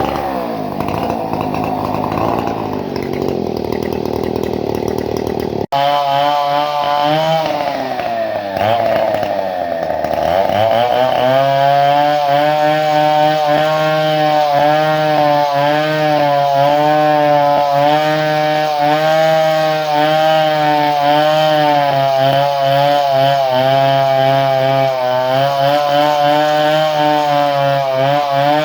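Two-stroke chainsaw engine running on its modified ignition. About six seconds in the sound breaks off abruptly and restarts, the engine speed dips and climbs back, and from there the saw runs at high speed with a slightly wavering pitch.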